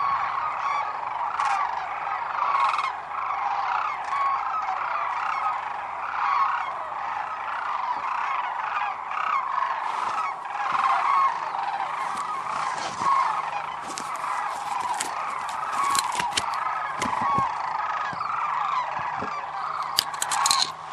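A large flock of sandhill cranes calling all at once, a dense, unbroken chorus of overlapping calls. A few sharp clicks come in the second half, the loudest near the end.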